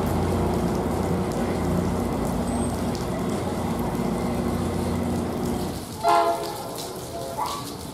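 Tri-Rail diesel-electric locomotive running with a steady engine drone as it pulls out of the station, in the rain. About six seconds in, a short train horn blast sounds, followed by a fainter second note.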